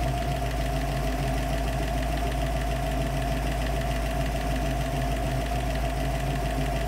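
Warmed-up 347 stroker small-block Ford V8 with a Holley 4160 four-barrel carburetor idling steadily while its idle mixture screws are being fine-tuned.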